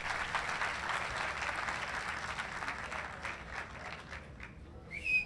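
Large audience applauding, the clapping dense at first and thinning and fading over the last couple of seconds.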